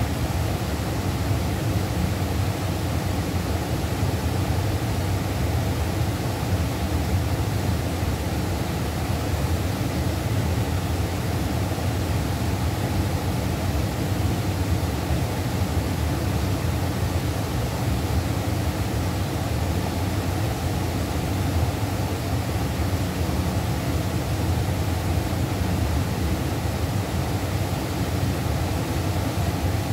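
Rushing water of a fast river: a steady, unbroken rush of noise, heaviest in the low and middle range.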